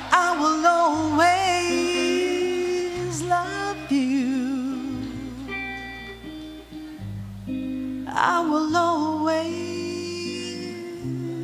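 Live ballad: a woman singing long held notes with vibrato over keyboard accompaniment with sustained bass notes.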